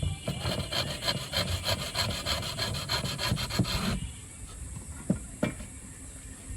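Wood being worked by hand with quick back-and-forth abrading strokes, about six a second, stopping about four seconds in. Two short knocks follow about a second later.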